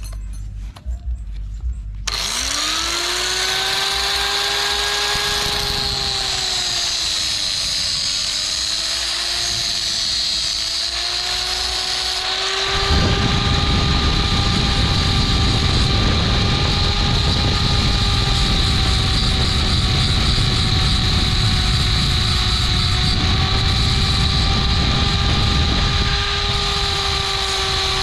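Small corded angle grinder switched on, its motor spinning up to a steady high whine about two seconds in. From about halfway through, a louder rough grinding joins the whine as the disc works a thin stainless steel wire.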